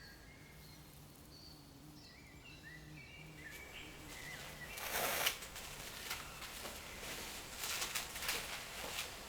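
Birds chirping over quiet outdoor ambience, then a sudden loud noisy burst about five seconds in, followed by several shorter irregular noisy bursts.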